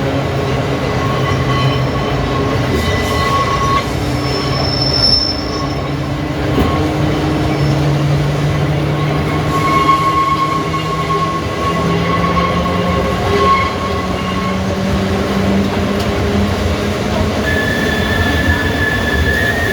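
Electric tramcar running along the track: a steady rumble of wheels and running gear, with a low whine that rises in pitch over several seconds as it picks up speed. A high, steady wheel squeal sets in near the end.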